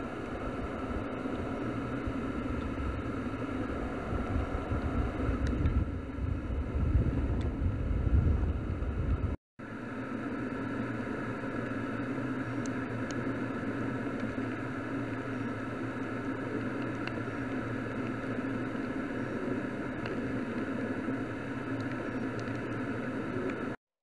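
Steady hum of a running vehicle's engine and road noise. A gusty low rumble sits on it in the first part and breaks off abruptly about nine seconds in, after which the hum carries on evenly.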